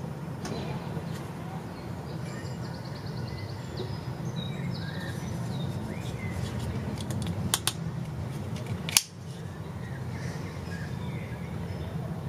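Birds chirping and trilling over a steady low outdoor rumble. A few sharp clicks come a little past the middle, the loudest about three quarters of the way through, from the Spyderco Manix 2 Lightweight folding knife being handled.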